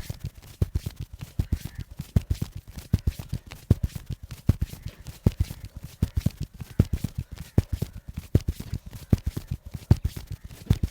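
A masseur's hands striking the body in rapid percussive massage strokes: dull thumps, several a second, in an uneven run.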